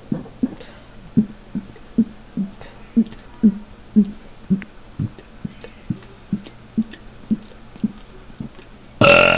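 A man's voluntary burp without carbonation: a steady run of short low gulps, about two a second, as air is swallowed, then a really loud, long burp bursting out near the end.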